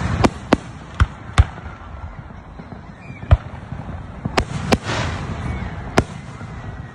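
Aerial fireworks going off: a run of about eight sharp bangs at uneven intervals, some in quick pairs, over a steady background rumble.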